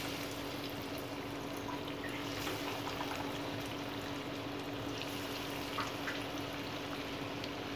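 Breaded chicken-and-potato donuts sizzling steadily in hot oil in a frying pan, with a few faint pops, over a steady low hum.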